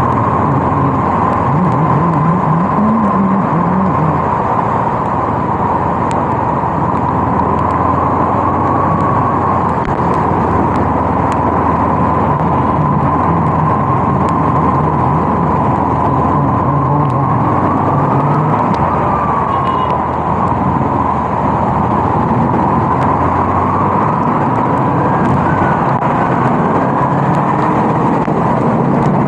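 Kawasaki KLE 250 motorcycle engine running under way, its note rising and falling a little, under loud, steady wind and road noise with a steady whine.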